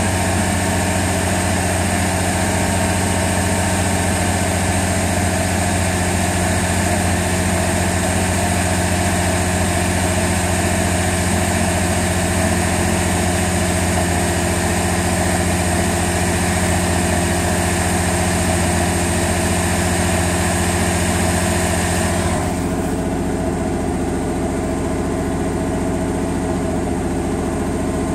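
Pontiac Sunfire's 2.2 L Ecotec four-cylinder engine idling steadily. About three-quarters of the way through, the sound turns duller, as it is now heard from inside the car's cabin.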